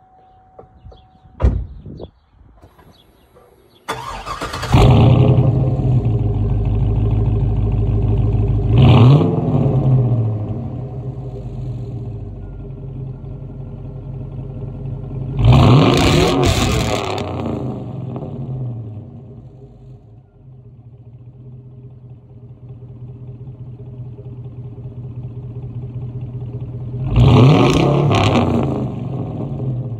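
A 2005 Cadillac Escalade's LS V8 cranks and starts about four seconds in, heard at the tailpipe of its true-dual exhaust with Black Widow Neighbor Hater mufflers feeding one 4-inch pipe. It then idles and is revved three times, the middle one a quick double blip, settling back to idle after each. A sharp clunk comes just before the start.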